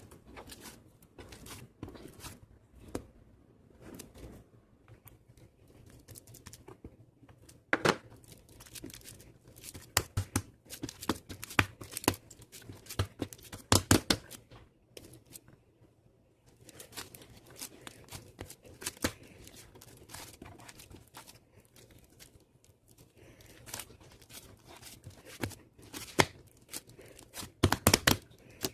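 Irregular crinkling and tearing handling noises with sharp crackles, in a small room; the loudest clusters come about a third of the way in, around the middle and near the end.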